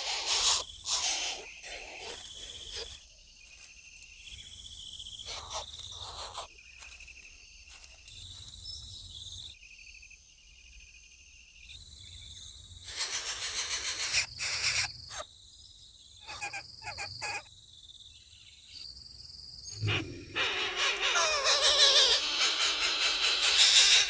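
Outdoor bird and insect sounds: a steady high insect drone with bird calls, broken by several loud bursts of noise.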